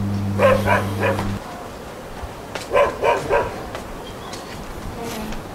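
A dog barking in short yaps, two quick runs of three about two seconds apart. A steady low hum plays under the first yaps and stops about a second and a half in.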